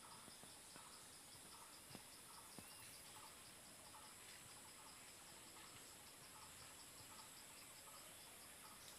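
Faint outdoor insect chorus: a steady high-pitched hiss with a rhythmic pulsing of about four beats a second, and short lower chirps repeating every half second or so. Two faint taps come about two seconds in.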